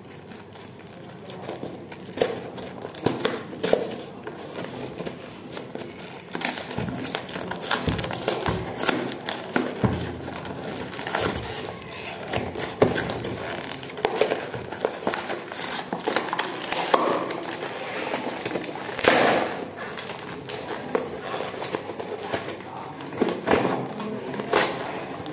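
Cardboard parcel being handled and opened by hand: irregular crinkling and crackling of the corrugated box and its packing, with scattered knocks.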